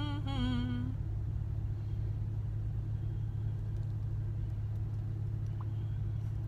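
Steady low hum of a car engine idling, heard from inside the car. A short, wavering hummed vocal tone sounds in the first second.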